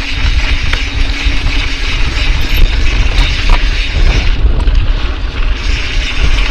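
Mountain bike ridden fast down a dirt trail: heavy wind rumble on the action-camera microphone over tyre noise, the rattle of the bike, and the buzz of the DT Swiss 350 rear hub's ratchet freewheel while coasting.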